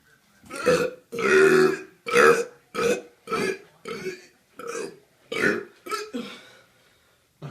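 A man burping repeatedly: a quick string of about ten separate belches, the second one the longest, ending about a second before the close.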